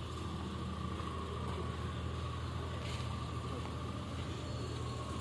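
A steady low engine hum, with a faint steady whine above it.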